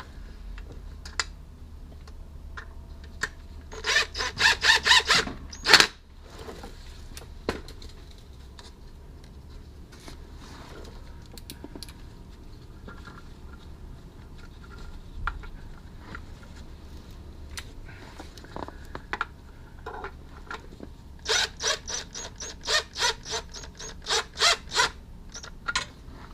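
Socket ratchet clicking as oil pan bolts are run in: a quick run of clicks about four seconds in and a longer, slower run of clicks near the end, with a few scattered taps of tools between.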